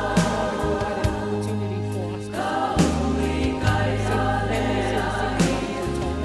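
Choral music with several voices singing in harmony over sustained bass notes and a regular beat.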